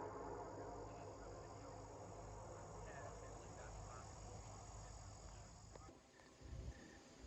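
Faint steady insect trill with a few faint chirps, while the last echo of a Nathan P5A air horn dies away in the first second. Just before the end the trill cuts off abruptly and low wind rumbles come in.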